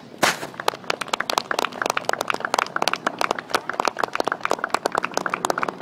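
A crowd applauding, beginning with a loud first clap about a quarter second in, then a dense, irregular patter of hand claps with some sharp ones close by.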